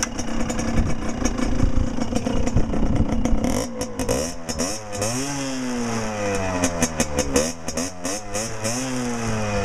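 Derbi Senda DRD Racing 50 SM's 50 cc two-stroke single-cylinder engine running through a LeoVince V6 exhaust: it holds a steady speed for the first three seconds or so, then is revved over and over, the pitch rising with each throttle blip and falling back.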